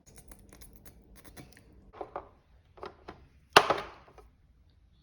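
Knocks, clicks and scrapes of a metal tin being handled in a cutting board's clamp, with one sharp, loud clack about three and a half seconds in.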